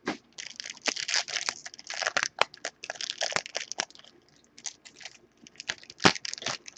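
Foil trading-card pack crinkling and tearing as it is worked open by hand, in irregular crackling bursts with a short lull midway and a sharp snap near the end.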